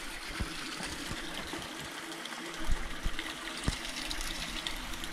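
A small stream running and trickling steadily, with a few soft knocks scattered through it.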